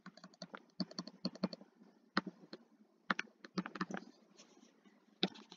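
Stylus tapping and clicking on a touchscreen while an equation is handwritten: a run of quick, irregular light clicks.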